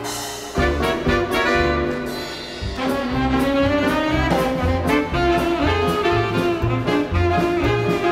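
Swing-era jazz band music with trumpets, trombones and saxophones over a steady bass beat.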